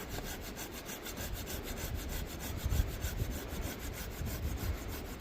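Saw cutting through a piece of firewood with steady, repeated strokes.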